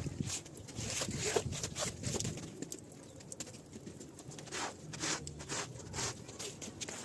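Brush or scraper strokes working a wet, dirty rug: a series of short, separate swipes, bunched closer together in the second half.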